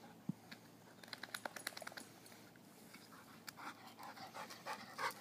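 Rhodesian Ridgeback puppy panting quickly and rhythmically, starting about halfway through. Before that comes a run of light clicks.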